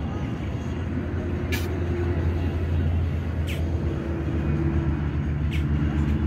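Low, steady engine drone of motor traffic, with a few hum tones that shift slightly, and three short hisses about two seconds apart.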